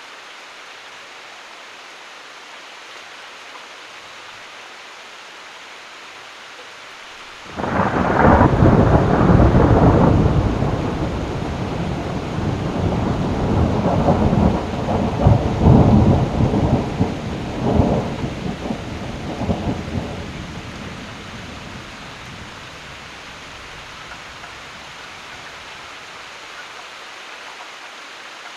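Steady rain with a thunderclap breaking suddenly about a quarter of the way in, then rumbling and crackling for some ten seconds before it dies away under the rain.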